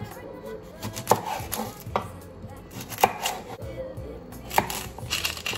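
Chef's knife cutting onions on a wooden chopping board: separate knocks of the blade meeting the board, spaced about a second apart, with a quicker run of cuts near the end.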